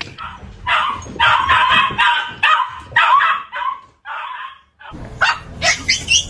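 A dog yipping and whining in a quick run of short, high cries. It stops abruptly about four seconds in.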